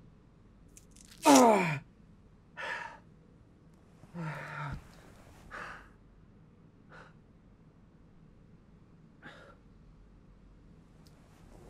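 A man crying out in pain: one loud cry falling sharply in pitch about a second in, then a short low groan and several heavy breaths spread over the following seconds, growing fainter.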